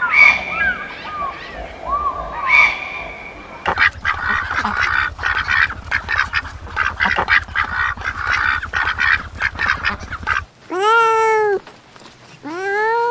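A large flock of white domestic ducks quacking together, a dense, overlapping chatter that starts suddenly after a few seconds of scattered chirps. Near the end it cuts to a cat giving two long meows, each rising and then falling.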